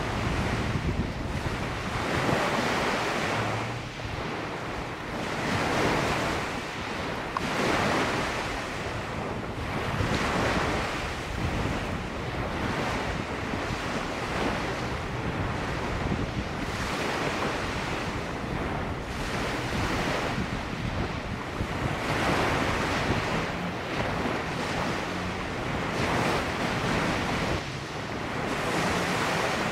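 Ocean surf breaking on the shore, the wash swelling and fading every two to three seconds, with wind buffeting the microphone.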